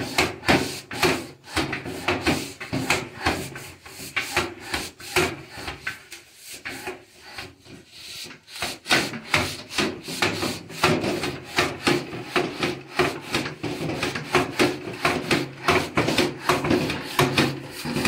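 Cloth rubbing hard over the slats of a louvred window shutter in quick back-and-forth wiping strokes, a few per second, softer for a few seconds midway.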